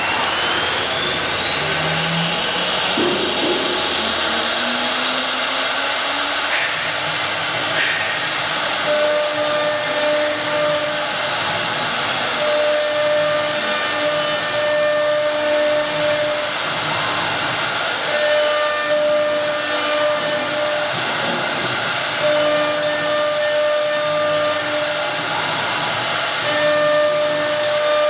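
CNC wood router running: a whine rises in pitch over the first couple of seconds, then a steady hiss. From about nine seconds in, a humming tone cuts in and out every few seconds.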